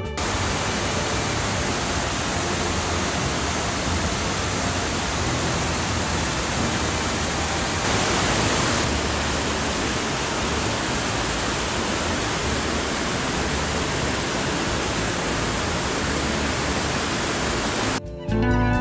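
Waterfall, water falling and rushing in a steady, unbroken roar.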